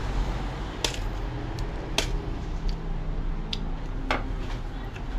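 Light clicks and taps of cups and containers being handled while a drink is made. The clearest come about one, two and four seconds in, over a steady low hum.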